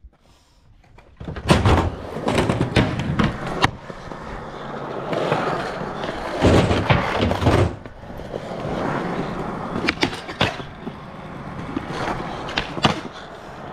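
A skateboard rolling on a smooth ramp surface, starting about a second in, with repeated sharp board clacks and landings. About ten seconds in, the board grinds along a rail.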